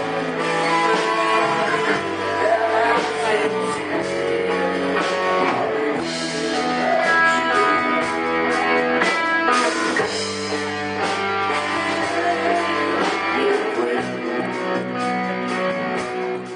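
Live rock band playing: electric guitars over bass guitar and a drum kit.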